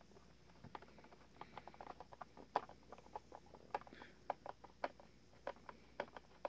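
Faint, irregular clicks and scratches of a screwdriver working a screw against the hard plastic back of a Gemmy Rock-a-Long Santa's body. The screw is not catching, which the owner puts down to something not being lined up right.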